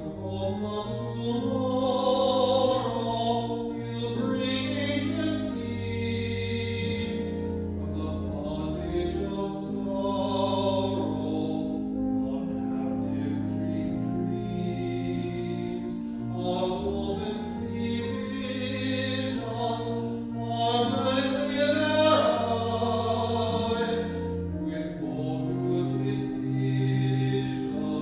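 Music: singing with vibrato over long held accompaniment chords.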